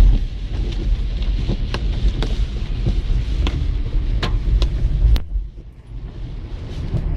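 Strong wind buffeting the microphone over the low rumble of a car driving through a hurricane storm, with irregular sharp ticks like rain or debris hitting the car; a louder tick about five seconds in, then the rumble briefly drops away before returning.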